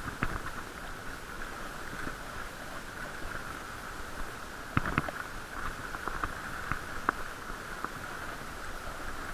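Bicycle riding over brick paving, heard muffled through an action camera's waterproof case: a steady hiss with irregular knocks and rattles from the bike over the bricks, the strongest about five seconds in.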